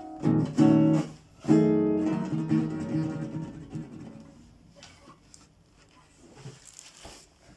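Acoustic guitar, the repaired Orfey, strumming the closing chords of a song: a few quick strums, then a last chord about a second and a half in that rings and dies away over a few seconds.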